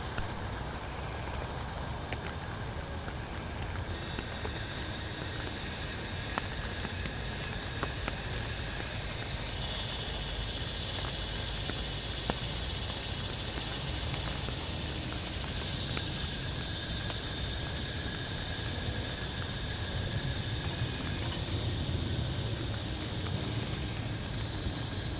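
Steady rain falling, with scattered sharp drips or taps. A high, steady whine joins about ten seconds in, and another a few seconds later.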